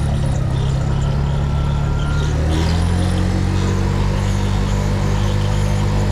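Cruiser-style motorcycle engine running steadily at low revs as the bike rides slowly through a turn.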